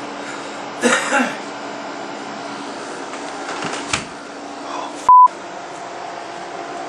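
A short, loud, pure-tone censor bleep about five seconds in, cutting out all other sound while it lasts. Around it is a steady low hum of room noise, with two short loud noises about a second in.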